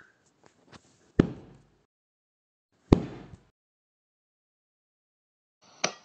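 Two heavy slam-like thuds about a second and a half apart, each ringing out briefly, then a short sharp clatter near the end.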